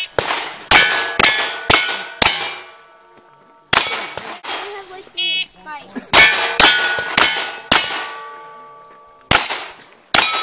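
Pistol shots fired in quick strings of about two a second, each answered by the ring of a hit steel target plate.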